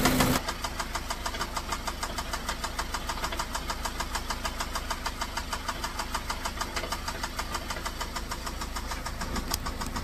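2014 Ford Focus SE engine idling with a steady, even knock, about five a second. The owner places the knock at the bottom end of the engine rather than the valve train, the sign of rod knock in a worn engine with 447,626 miles on it.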